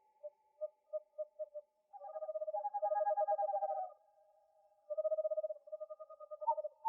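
Owls hooting: a quick run of short hoots, then longer quavering, trilled calls at two different pitches overlapping, twice.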